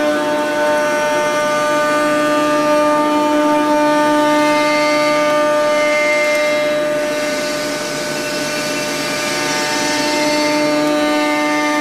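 C.R. Onsrud 148HD25 CNC machining center's spindle and end mill cutting 3-inch-thick friction stir welded aluminum: a steady whine of several pitches over a hiss, dipping slightly in loudness just past the middle.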